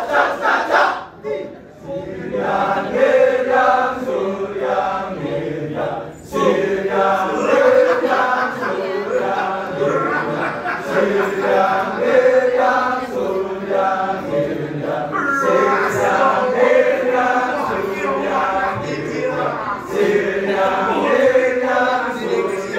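Balinese kecak chant by a seated circle of men's voices. Fast rhythmic calls in unison for about a second, a brief drop, then a chanted melody sung together in repeating phrases.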